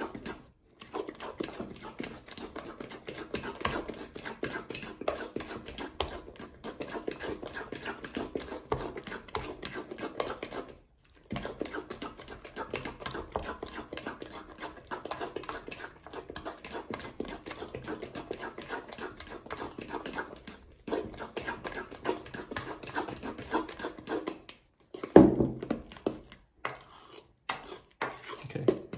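A utensil stirring thick, fruit-laden banana bread batter in a stainless steel bowl: quick, continuous squelching and scraping strokes against the metal, with a few brief pauses. A sharp knock about 25 seconds in is the loudest sound.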